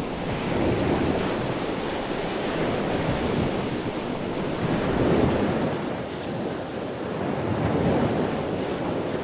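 Water rushing and spraying past the hull and hydrofoil of a fast-moving flying RIB, with wind buffeting the microphone. It is an even noise with no clear engine note, swelling and easing a few times.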